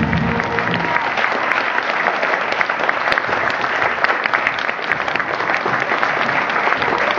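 Audience applauding steadily, with the last of the stage music ending about a second in.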